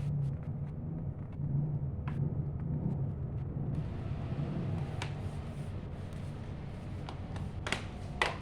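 A few sharp clicks and taps from laptop parts being handled and fitted back together, over a steady low rumble and hum.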